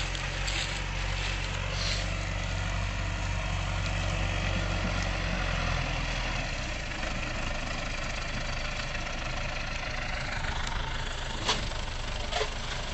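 Farm tractor engine running steadily while handling a round hay bale, a low hum that changes pitch about halfway through. A couple of sharp knocks near the end.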